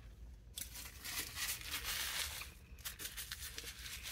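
Brown paper bag around a bagel crinkling and rustling as it is handled, a faint crackly burst starting about half a second in and lasting about two seconds, with a few softer rustles near the end.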